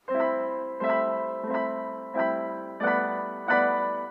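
Background music: a piano playing six chords, one about every two-thirds of a second, each ringing and fading before the next.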